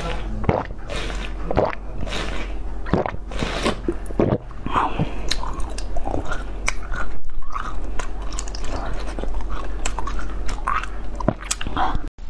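Close-miked ASMR eating sounds: repeated bites into a soft, glossy orange fruit-shaped treat, with wet sucking and chewing between them.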